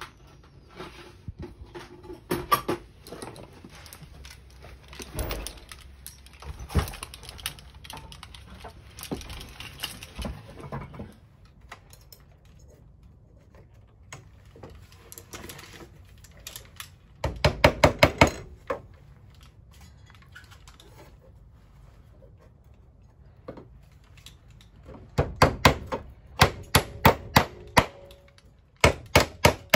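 Hammer tapping a small nail through a steel pressure plate into a wooden roof rafter, in quick runs of light, sharp strikes: one run midway and more runs near the end. Before them, clicks and rustling as the plate is handled and held in place.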